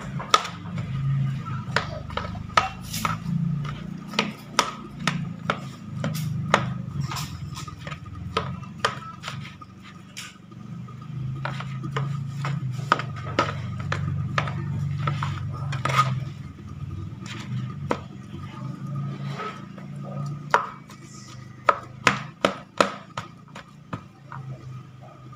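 A metal spoon mashing boiled cassava in a plastic bowl. There are irregular sharp clicks of the spoon against the bowl over a steady dull pressing sound.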